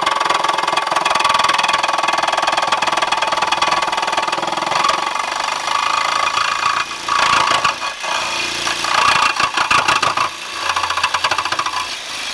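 Handheld power tool running under load as it cuts into a car's deck lid, with a rapid chattering buzz. It stops briefly and restarts about eight seconds in and again near ten seconds.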